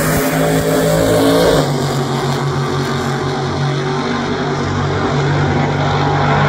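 Two alcohol-burning nostalgia funny car engines launching off the line side by side and running down the drag strip at full throttle, loud and steady.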